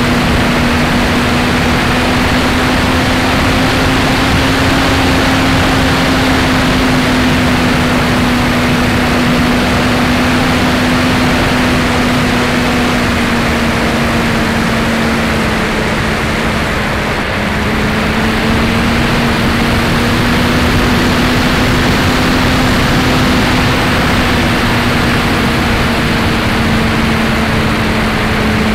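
Electric motor and propeller of a Max-Thrust Lightning 1500 RC glider running under power, heard from a camera on the airframe: a steady buzzing hum over a rush of airflow noise. The pitch dips slightly a little past halfway, then rises again.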